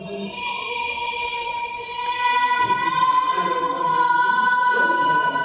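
Choral or operatic singing: one long, high note held steadily, swelling in over the first two seconds.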